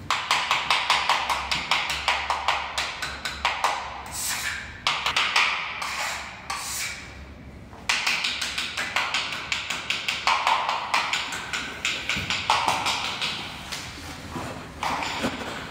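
Background music with a quick, tapping percussive beat.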